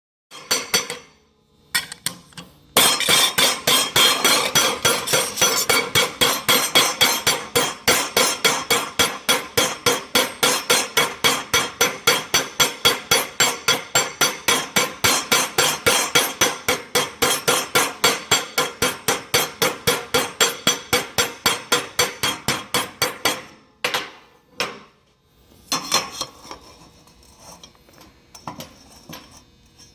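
A hammer striking metal in a fast, even run of ringing blows, about four a second, for some twenty seconds. It stops before the end, leaving a few separate knocks.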